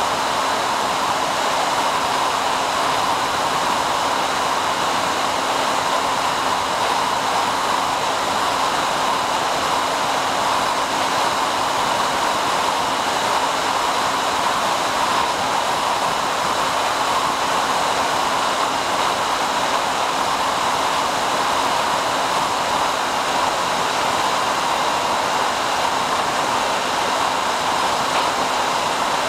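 Steady rushing hiss with a faint steady hum underneath: the in-flight audio of a SkyHunter FPV plane, wind over the airframe and its electric motor held at a constant cruise throttle.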